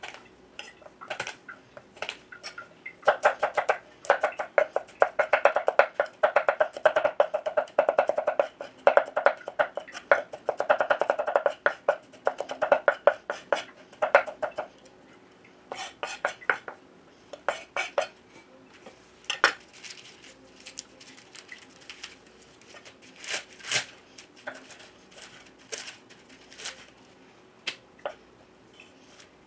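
Kitchen knife chopping on a wooden cutting board: a fast, even run of cuts for about twelve seconds, then slower, scattered cuts. A faint steady hum sits underneath.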